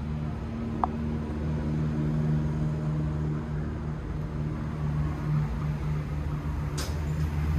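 A steady low motor hum runs throughout. A short high chirp comes about a second in, and a sharp click near the end.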